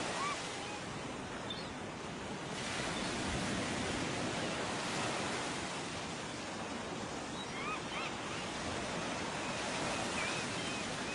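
Steady rushing noise of waves, with a few faint short chirps over it near the start, about three quarters in and near the end.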